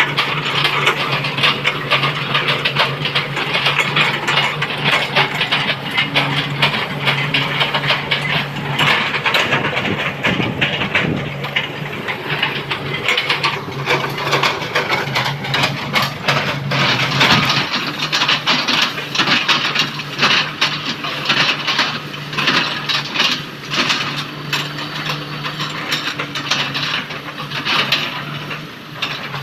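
Komatsu PC200 excavator's diesel engine running steadily under load, with a dense, continuous crackling and crunching of oil palm trunk being chopped into chips by the bucket.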